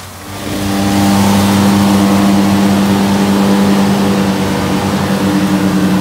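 Deutz-Fahr tractor's diesel engine running at steady working revs, a constant drone that swells about half a second in and then holds.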